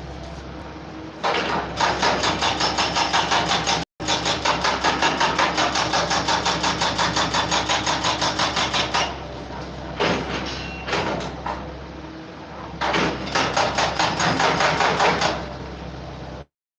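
A machine running with a rapid, even clatter of about five strokes a second that comes and goes in bursts over a steady low hum; the sound cuts out briefly twice.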